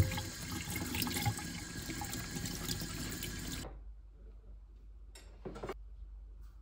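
Kitchen tap running water over tomatoes held under the stream in a stainless steel sink; the splashing stops abruptly about three and a half seconds in. After that it is much quieter, with a couple of faint knocks.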